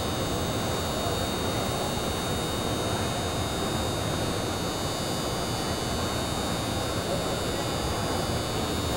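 Steady, even background noise of an indoor arena, with a faint murmur of voices and no distinct events.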